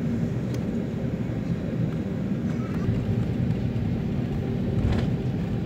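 Airliner cabin rumble during the takeoff roll: the engines and wheels on the runway make a steady, heavy low roar, with a sharp knock about five seconds in.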